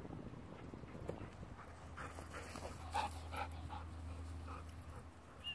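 German Shepherd dog panting close by as it runs up, a quick run of short breaths about two to four seconds in, loudest at about three seconds.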